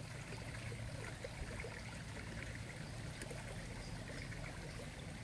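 Soft, steady outdoor ambience by a pond: an even hiss with faint scattered ticks and a low hum underneath.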